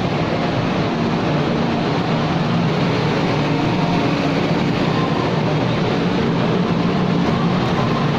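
Steady drone of a large passenger ship underway: an even rush of noise with a low engine hum beneath it, unchanging throughout.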